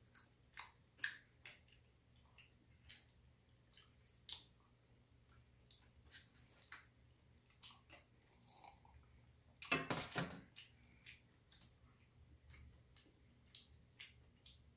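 Quiet eating at a table: scattered light clicks and taps of chopsticks against plastic food containers, with chewing. About ten seconds in there is one short louder noise, under a second long.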